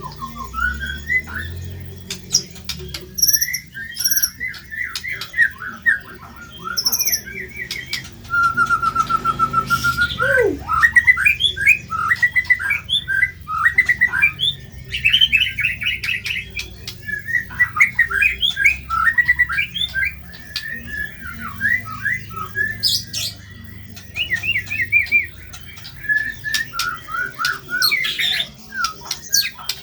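White-rumped shama singing a fast, varied song of short chirps and harsh squawky notes, with an even, rapid trill about eight seconds in followed by a quick falling note.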